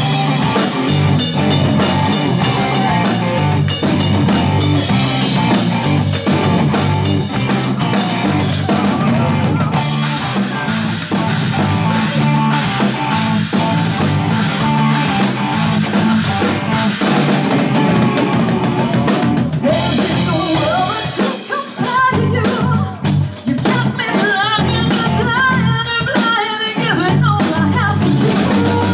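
Live rock and soul band playing: a drum kit, electric bass and electric guitar, with a woman singing. The band drops out briefly twice about two-thirds of the way through, in stop-time breaks.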